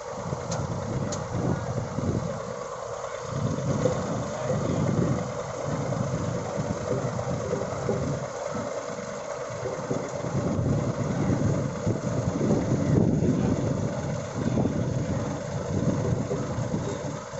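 Road roller engine running steadily, with an uneven low rumble beneath it that swells and fades.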